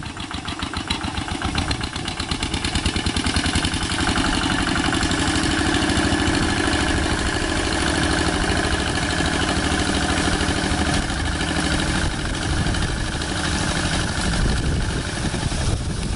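Two-wheel hand tractor's single-cylinder diesel engine revving up from a slower, quieter chug over the first few seconds, then running steadily at working speed under load as it pulls a plough through the soil.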